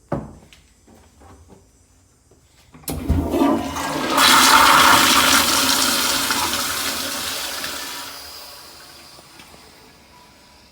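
Flushometer-valve toilet flushing: a loud rush of water that starts about three seconds in, is loudest a second or two later, then slowly fades away. A sharp knock comes just before, right at the start.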